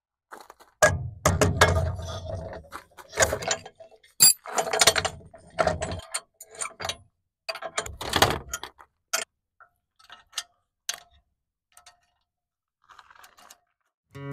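Irregular metallic clanking and rattling as a steel hitch-mounted loader arm is worked into a pickup's receiver hitch, some knocks with a deep thud and a short ring. The clanks come in clusters with gaps, thinning out and growing faint near the end.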